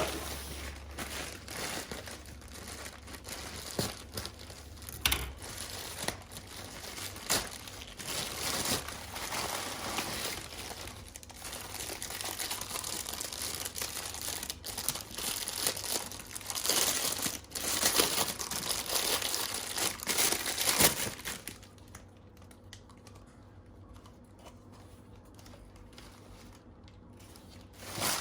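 Plastic or paper packaging crinkling and rustling, with some tearing, as it is handled and opened by hand; the rustling stops about three quarters of the way through.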